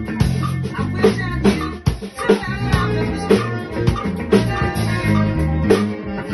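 Fender Custom Shop electric bass playing a busy funk bass line along with a backing track of drum kit, guitar and singing.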